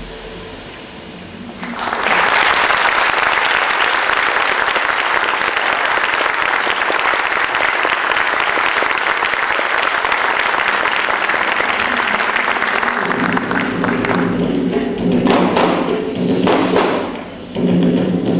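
Audience applauding, starting about two seconds in as soft music fades and running for about twelve seconds. Near the end the applause thins out and music with drum strokes starts up.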